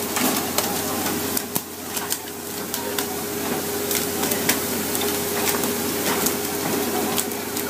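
Steady hiss of churning water and spray alongside a pole-and-line tuna fishing boat, over a steady engine hum, with frequent sharp knocks as tuna and poles hit the deck and rail.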